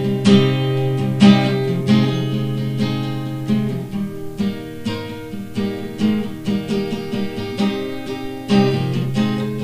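Acoustic guitar strummed in a steady rhythm, chords ringing on between strokes, with no singing.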